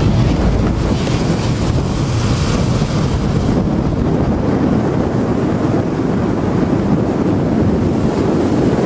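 A steady, loud rushing noise with no distinct tones or rhythm, like wind or surf.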